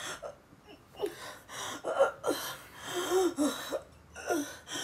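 A woman's laboured gasping breaths: several short, strained voiced gasps one after another.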